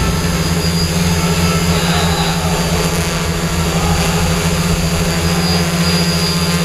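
Loud, steady machine hum: one constant low tone under an even hiss and rumble.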